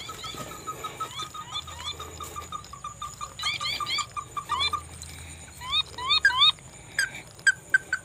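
Birds calling: a steady run of short clipped notes, about six a second and slowly falling in pitch, with groups of quick rising chirps over it. A few sharp clicks near the end.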